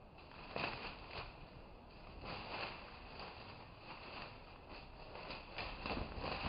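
Two junglefowl roosters sparring in dry leaf litter: irregular bursts of wing flapping and rustling, crackling leaves as they leap and strike.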